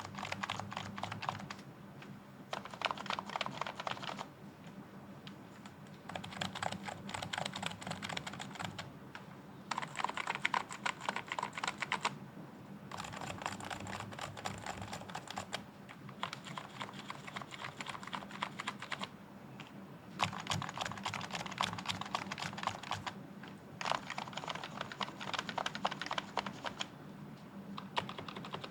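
Typing on an electrostatic capacitive (Topre-style) 60% keyboard. The keystrokes come in quick runs of a few seconds each, broken by short pauses.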